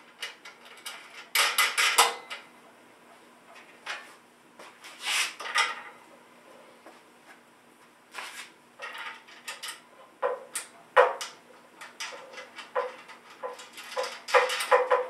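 Small steel hardware clinking and rattling: bolts, washers and nuts handled and threaded by hand onto the metal mounting flange under a dust collector motor. The clicks come in scattered clusters, with a quicker run of light clicks near the end.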